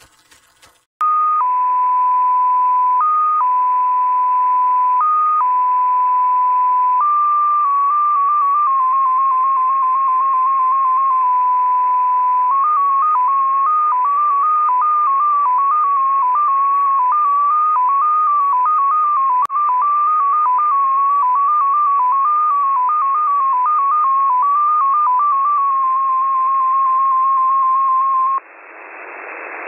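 XPA2 Russian number station received in upper sideband: a single tone hopping among closely spaced pitches around 1 kHz (14-tone MFSK at 7.8125 baud) over steady receiver hiss. It opens by switching slowly between two pitches, then steps rapidly. Near the end it cuts off, leaving radio static.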